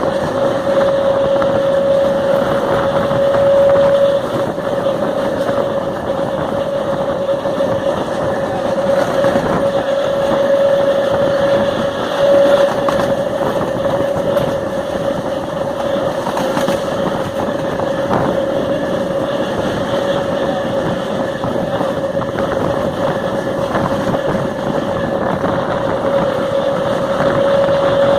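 FNV/Cobrasma Série 4400 electric multiple unit running at speed, its traction motors growling loudly with a steady whine over constant wheel-and-rail rumble.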